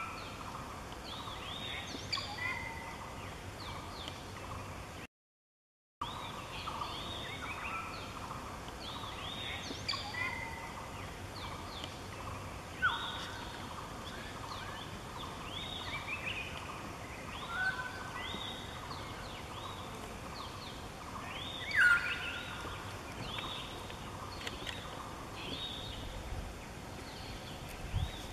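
Several birds calling in the forest: many short calls, repeated over and over and overlapping. A louder, sharper call stands out about three-quarters of the way through. The sound cuts out completely for about a second, five seconds in.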